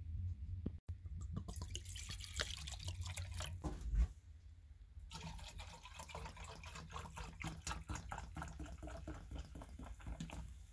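Cola poured from a plastic bottle into a stainless steel cup, splashing and fizzing as a dense crackle in the second half. An earlier burst of the same kind of sound ends in a single thump about four seconds in.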